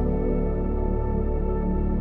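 Background ambient music with soft held synth chords and a steady low bass note.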